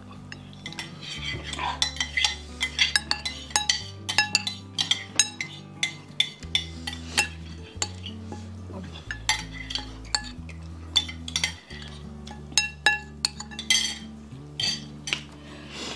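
Metal spoons clinking and scraping against ceramic soup bowls in quick, irregular strokes, over background music with a low bass line.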